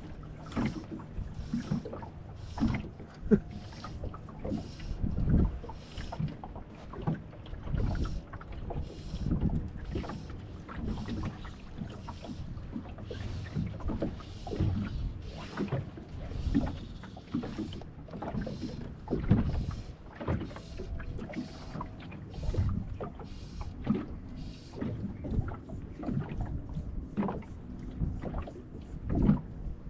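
Small wind-driven waves lapping and slapping irregularly against the hull of a drifting fishing boat.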